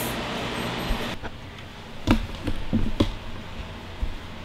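Footsteps on a tile floor as a small dog and the person filming move about: a handful of light, irregular knocks and clicks, the strongest about two and three seconds in.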